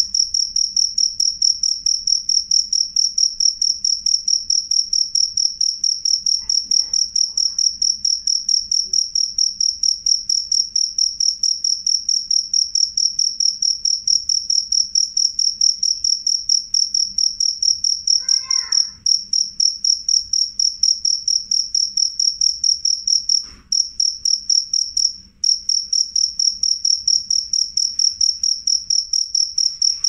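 Male black field cricket calling with its wings raised: a loud, high-pitched trill made of a fast, even run of chirps. It breaks off briefly three times in the second half.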